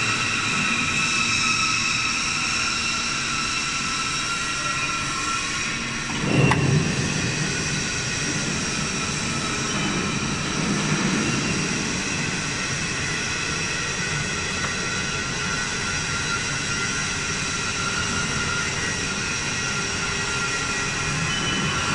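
Steady hum and whine of running machinery, several steady tones over a low rumble, with one sharp knock about six seconds in.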